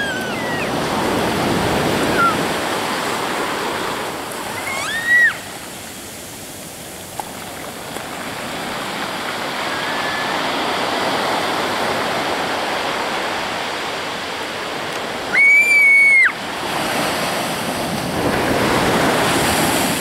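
Ocean surf washing in over a sand beach, a steady hiss of breaking and receding waves that swells and ebbs. A child gives a short high squeal about five seconds in and a louder, longer shrill squeal about three-quarters of the way through.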